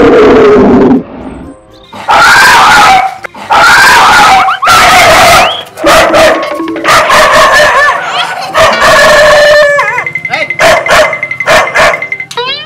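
Tan street dog barking in a string of loud bursts at a dangled stuffed toy tiger, with music playing over it.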